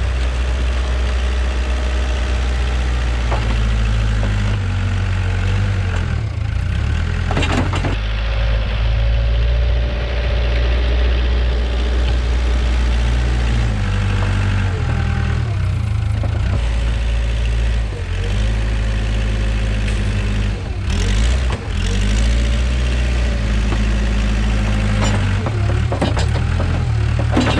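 Case 580K backhoe's diesel engine running, its revs and load shifting up and down, with a few clanks from the machine, while it clears snow.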